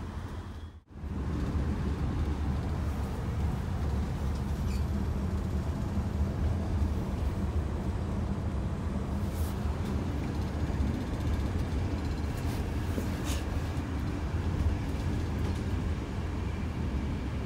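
Steady low rumble of a passenger train coach running along the track, heard from inside the carriage. The sound cuts out abruptly for a moment about a second in, then carries on evenly, with a few faint light ticks.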